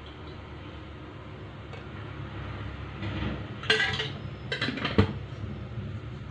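Metal kitchen utensils clinking against pots: a few sharp clinks about four and five seconds in, over a steady low background hum.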